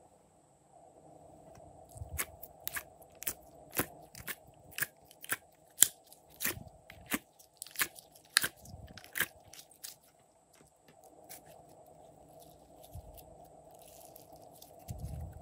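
Sticky pink slime being peeled and pulled by hand out of a plastic compartment palette, giving a run of sharp clicks and crackles. They thin out past the middle into quieter squishing of the stretched slime.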